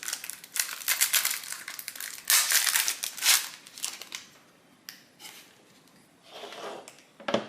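Packaging crinkling and rustling as the box contents are handled: dense crinkling for the first few seconds, then fainter rustles, with one sharp knock near the end.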